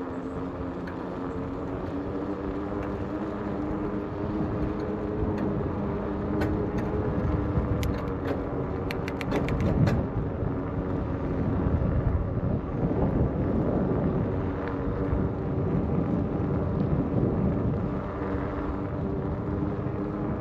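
Aventon Aventure 2.0 e-bike rolling along a paved path: a steady hum that rises slightly in pitch, with wind rumbling on the GoPro microphone in gusts. A quick run of sharp clicks comes about nine seconds in.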